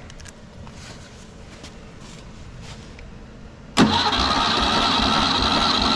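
Starter motor cranking a VW Beetle engine over, starting suddenly about four seconds in: a steady whine with even compression pulses and no catch. This is a compression test, and the engine is turned over with the gauge in one cylinder.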